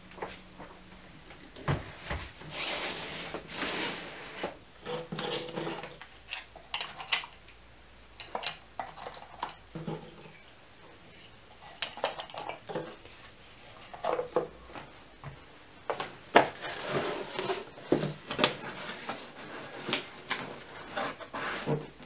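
Irregular light clinks, knocks and rustles of Christmas decorations, including wooden cut-out ornaments, being handled and packed into cardboard and gift boxes.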